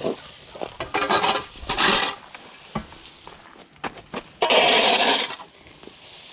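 A metal-headed garden tool scraping across asphalt three times, the last scrape the longest, with light knocks and footsteps between.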